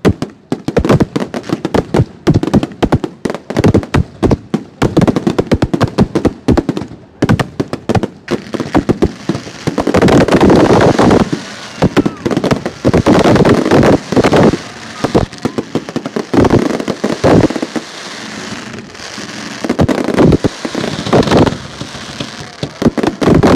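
Aerial fireworks display: shells bursting in quick succession with sharp bangs, thickening about ten seconds in into a near-continuous barrage of bangs and crackle.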